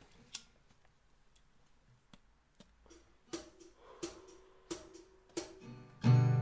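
Acoustic guitar: a few soft clicks and single plucked notes left to ring, then a loud strummed chord near the end.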